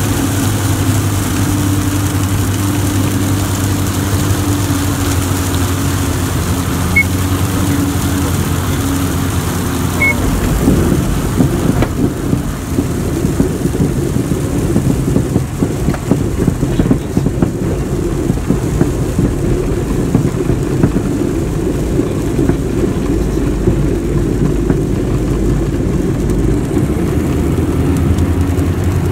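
Diamond DA42 Twin Star's twin engines heard from inside the cabin on a landing approach: a steady droning engine note, which about ten seconds in gives way to a rougher low rumble.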